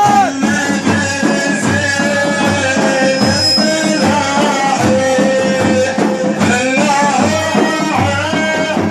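Music: a wavering, ornamented melody over a steady, regular drum beat.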